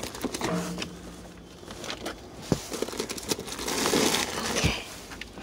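Plastic bags and packaging rustling and crinkling as a gloved hand rummages through bagged craft supplies, with a few sharp clicks and knocks. The rustling is loudest about four seconds in.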